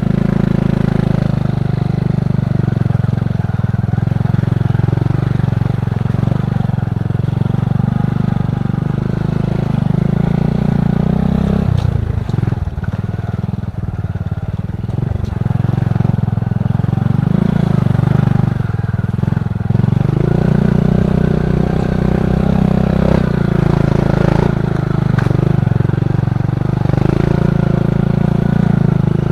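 Trail-converted motorcycle's Honda KPH 125 cc single-cylinder four-stroke engine running steadily under throttle; the engine note drops and wavers about twelve seconds in, then picks back up.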